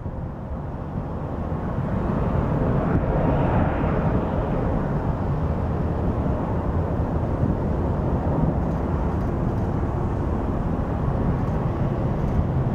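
Jet roar of a Lockheed C-5 Galaxy's four TF39 turbofan engines at climb power after takeoff. The roar swells over the first few seconds and then holds steady.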